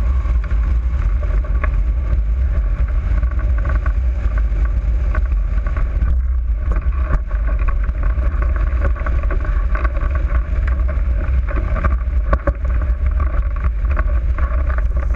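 Loud, steady wind noise on the microphone of a camera mounted on a hang glider's keel as the glider flies through the air.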